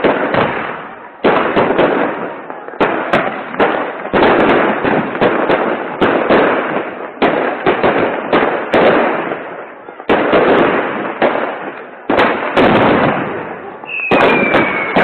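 Fireworks and firecrackers going off in quick succession, a dense run of sharp bangs one after another. Near the end a short whistle falls in pitch.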